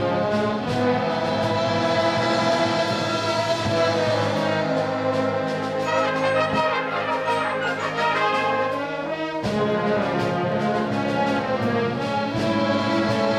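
Concert band of woodwinds and brass playing, with the brass to the fore. About nine and a half seconds in, the low notes briefly drop out as a new phrase begins.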